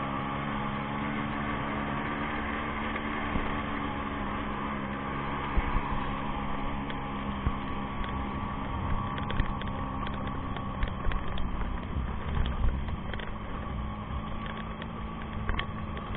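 Motorcycle engine running steadily under way, with wind and road noise. From about five seconds in, irregular knocks and thumps come through as the bike rides over a rough dirt track.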